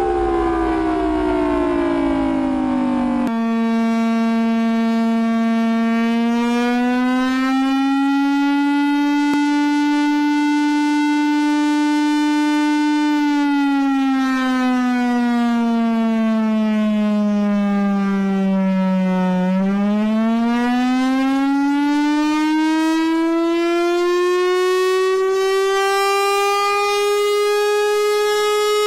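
Emergency alert siren tone sliding slowly in pitch. A falling siren wail cuts off about three seconds in and gives way to a buzzy siren tone that rises a little, holds, sinks low about twenty seconds in, then climbs steadily higher to the end.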